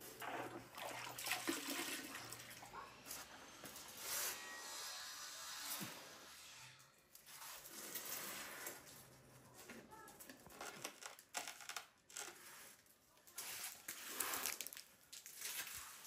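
Faint, irregular scraping and rubbing of a ceramic floor tile being set into thinset mortar and pressed down by hand, with a few light knocks.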